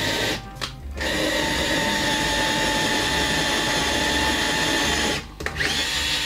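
IKEA FIXA 7.2V cordless drill running under load as its bit bores into a block of hard wood, in three steady runs with two short breaks where the trigger is let off, about half a second in and about five seconds in. The small drill is struggling to drill hard wood.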